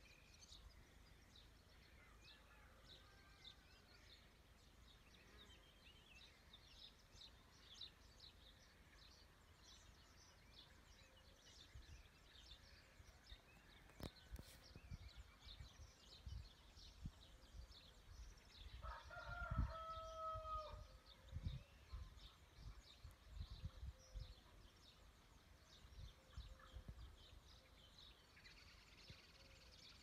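Faint rural morning ambience: small birds chirping throughout, and a rooster crowing once about two-thirds of the way through. A few low rumbling bumps come in the middle stretch.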